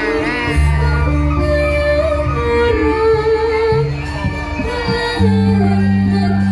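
Live ensemble music with a woman singing through loudspeakers, over held low bass notes that change about half a second in and again about five seconds in.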